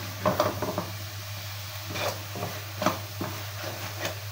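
Wooden spatula stirring and scraping a thick coconut, milk and sugar mixture around a metal kadhai in irregular strokes, the mixture nearly dry at the final stage of cooking.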